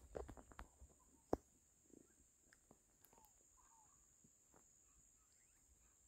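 Near quiet: a few faint taps in the first second, one sharper knock a little over a second in, and scattered faint bird calls.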